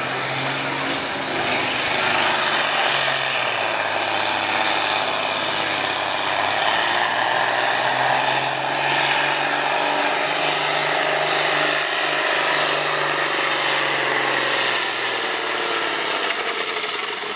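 John Deere 4440 tractor's turbocharged six-cylinder diesel running hard under full load, pulling a weight-transfer sled. A steady, loud drone that drops a little near the end.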